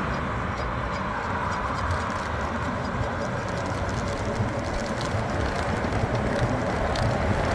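Wind rushing over the microphone and road noise from a Miku Super 3000 W electric motorcycle accelerating from a standstill up a hill to about 40 km/h. The noise is steady and grows a little louder near the end.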